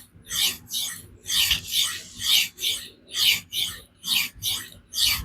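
Spyderco Magnamax steel knife blade being stroked back and forth on a coarse diamond sharpening stone: a rhythmic gritty scraping at about two strokes a second. This is grinding to raise a burr and take the convexity out of the edge.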